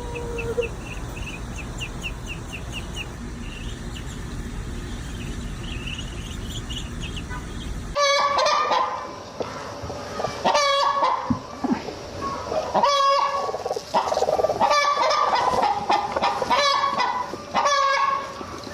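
Faint high chirping over a low rumble of wind, then, after a cut about eight seconds in, domestic fowl calling loudly: a run of strong pitched calls, one every second or two.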